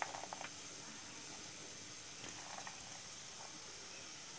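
Onion, carrots, peas and baby corn frying in oil in a pan, a faint steady sizzle, with a few light clicks in the first half second and again a little past two seconds.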